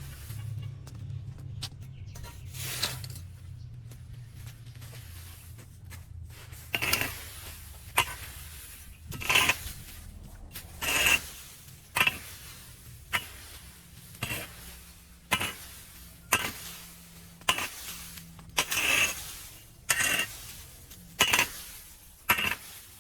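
Sharp clinking strikes of a metal hand tool against hard debris, about fifteen of them at roughly one a second, beginning some seven seconds in.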